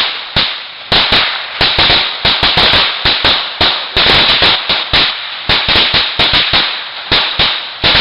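A string of Black Cat firecrackers going off in rapid, irregular bangs, several a second, with no break.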